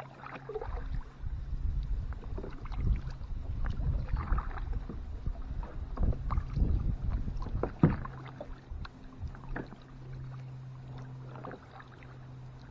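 Kayak paddle strokes dipping and splashing in the water, over a low rumble that fades about two-thirds of the way through, leaving a steady low hum. A sharp click just before the rumble fades.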